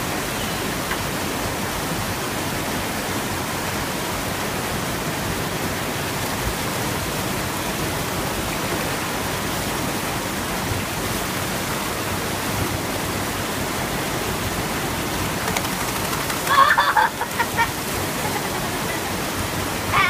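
Steady rushing of water spilling over a small concrete weir and down a rocky creek chute. About three-quarters of the way through, a short high-pitched call briefly rises above the water.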